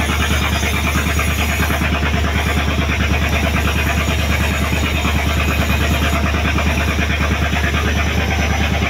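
Fishing boat's engine running steadily while underway: a constant low drone with a fast, even throb.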